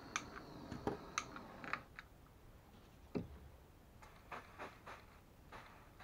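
Scattered light clicks and taps of tools and parts handled at a soldering workbench, several in the first two seconds and a few more later, over a quiet background.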